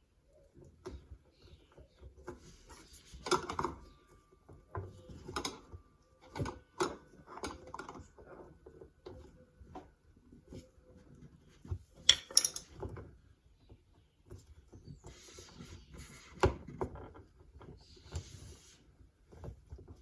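Hands working on dishwasher parts: irregular clicks, knocks and rattles, with a few louder knocks spread through.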